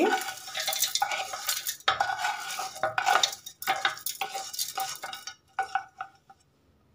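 Roasted peanuts, chana dal, coconut slices and chillies scraped with a spatula out of a wok and tipped into a steel mixer-grinder jar: metal scraping and rattling, with a ringing tone from the jar. It stops about six seconds in.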